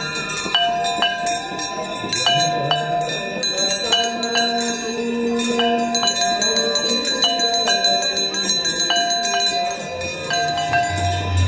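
Brass aarti hand bells ringing steadily, with a fast run of strikes and ringing tones that repeat in an even pattern.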